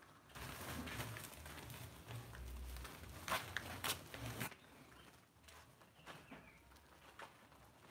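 Plastic sacks of wood ear mushroom baglogs rustling and crinkling as they are lifted and carried off a truck, with a few sharp knocks about three and a half seconds in. The handling noise gets quieter after about four and a half seconds.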